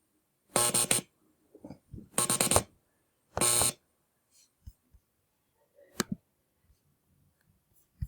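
Morse code sent as buzzing tones: three short buzzes about a second apart in the first four seconds, followed by a sharp double click about six seconds in.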